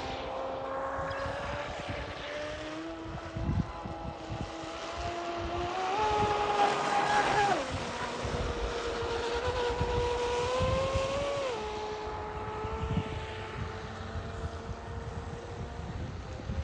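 Pro Boat Blackjack 42 RC catamaran's brushless electric motor whining at speed as it runs across the water. The pitch climbs slowly, steps up about six seconds in, then falls sharply a second and a half later and again near the end of the second third.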